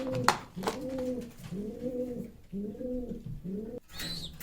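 Pigeons cooing over and over, each coo a low call rising and falling in pitch. Two sharp clicks come within the first second, and a short high chirp near the end.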